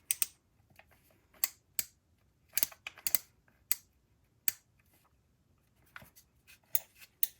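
3D-printed plastic combination dials being turned to enter a code, giving irregular sharp clicks, some in quick pairs.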